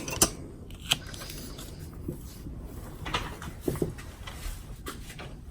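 Scissors snipping through the backing sheet of glitter laminate: a few sharp snips in the first second, then softer, scattered cuts and handling.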